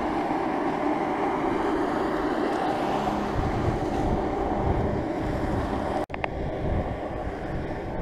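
Steady outdoor ambience with wind buffeting the microphone in irregular low rumbles. About six seconds in there is a brief drop-out where the audio cuts.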